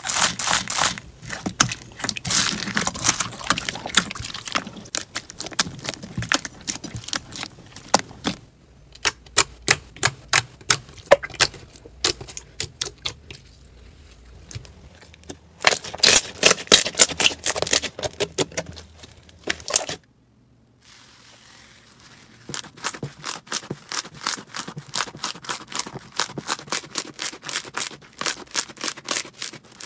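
Hands pressing, stretching and squeezing slime, giving runs of crunchy crackling and sticky popping clicks. The crackling is dense for the first several seconds and again in the middle. After a short break, about two-thirds of the way in, it turns into a steady clicking of about two to three pops a second.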